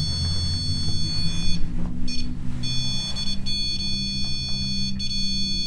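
REM pod ghost-hunting sensor alarm sounding a steady, high-pitched electronic tone, the sign that something is close to its antenna. The tone cuts out briefly near two seconds in and again just after, then comes back.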